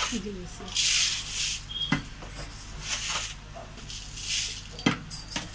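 Granulated sugar scooped from a plastic jar with a small glass and poured into a pot of milk: about four short hissing pours, with a few sharp knocks of the glass in between and near the end.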